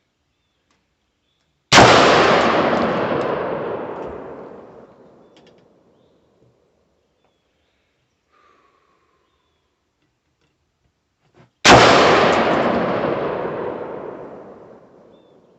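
Two single shots from an AR pistol firing 55-grain Tula ammunition while it is sighted in, about ten seconds apart. Each is a sharp crack followed by a long echo that dies away over about four seconds.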